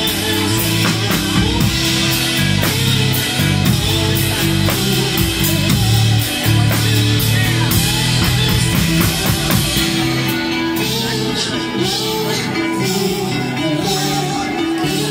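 Live rock band playing, with electric bass guitar, keyboard and drum kit. About ten seconds in the drums and cymbals drop away, leaving the bass and keyboard.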